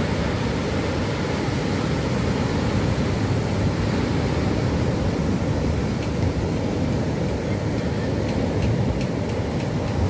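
Heavy Indian Ocean surf breaking on a sandy beach: a steady low rumble of rolling waves.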